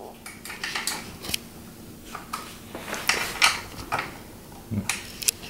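Plastic parts of a toy tricycle clicking, knocking and scraping irregularly as they are handled and fitted together during assembly.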